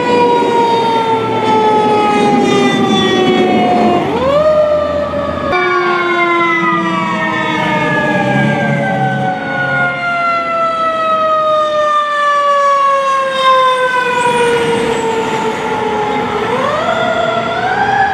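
Fire engine sirens wailing. Each long tone slides slowly down in pitch and then sweeps quickly back up, about four seconds in and again near the end. For a few seconds around the middle, two sirens sound at once at different pitches.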